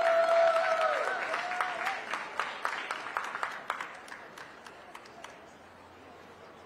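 Spectators clapping, with one long whooping cheer over the first two seconds. The applause thins out and dies away about four seconds in.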